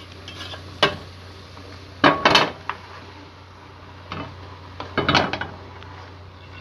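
A spoon knocking and scraping against the pan as a thin curry is stirred, in four short clattering bouts, the loudest about two seconds in.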